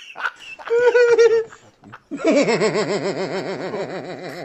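Laughter: a short voiced sound about a second in, then from about two seconds in a long run of even ha-ha-ha pulses, about five a second.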